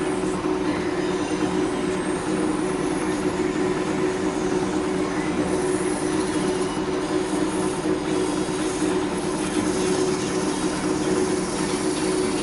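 Laguna wood lathe running steadily with a spinning workpiece, giving a constant hum. From about six seconds in, a finishing pad rubbed against the spinning rim adds a hiss.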